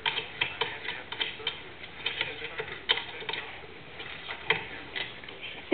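A dog scrabbling and pawing after a toy: irregular, rapid clicks and taps.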